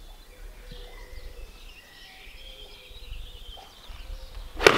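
Birds chirping quietly, then a golf club striking a ball off a hitting mat with one sharp crack near the end.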